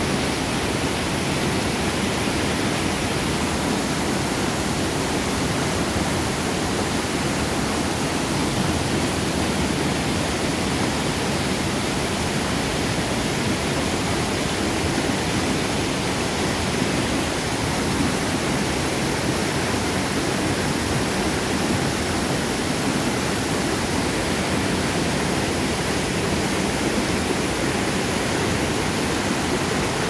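White water of a fast mountain stream rushing and churning over boulders and small cascades, a loud, steady rush with no letup.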